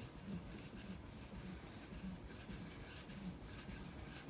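Faint, repeated rubbing strokes of a 4000-grit Edge Pro diamond matrix polishing stone along a steel knife edge, roughly two a second. There is barely any sound of the stone cutting, because at this fine grit it is only polishing the edge.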